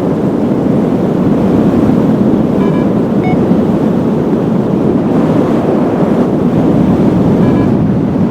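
Strong wind rushing over the microphone in a steady, loud rush. A few short electronic beeps come through it about three seconds in and again near the end.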